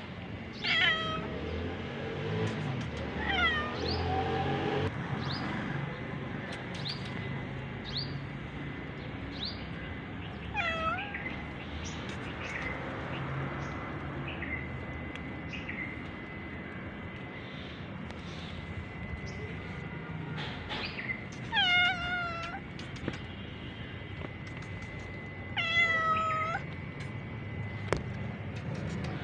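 Calico cat meowing: about five separate meows spread out with pauses between, each curving down in pitch, the loudest two near the end.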